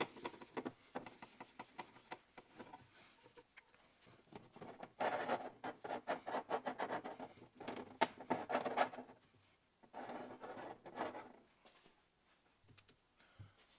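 Scratchy rubbing on small steel oil-can parts while gun blue is applied. Light scrubbing strokes at first, then a busier spell in the middle, then a shorter one.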